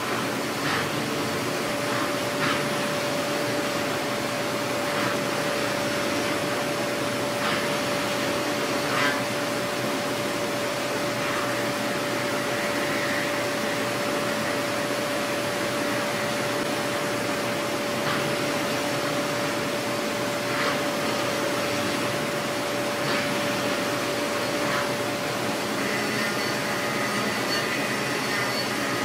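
A 5-axis CNC mill-turn machine rough-milling a Ti-6Al-4V titanium blisk with a ball end mill under flood coolant. It makes a steady whir and hiss from the spindle, the cut and the coolant spray, with one steady tone held under it and faint ticks every few seconds.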